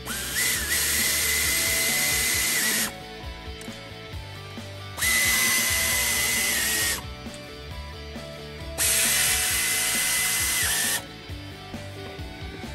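Pneumatic air ratchet run in three bursts of about two to three seconds each, with a steady high whine, driving the mounting bolts of a newly fitted alternator. Background music plays under it.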